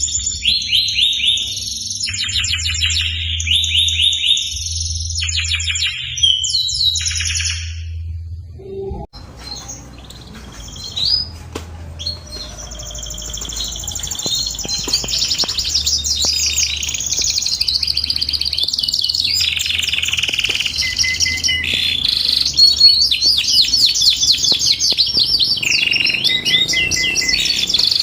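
Domestic canary singing: long, rapid trills and rolling warbled phrases, high-pitched. The song breaks off with a click about nine seconds in, then resumes and builds louder over a low steady hum.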